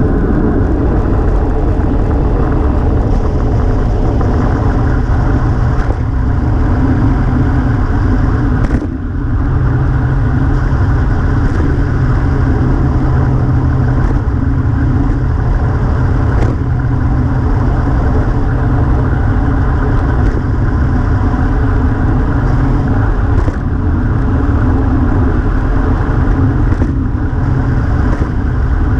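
Wind rushing over a GoPro's microphone on a fast road-bike descent, mixed with the hum of the tyres on the asphalt: a loud, steady rush, with a brief drop about nine seconds in.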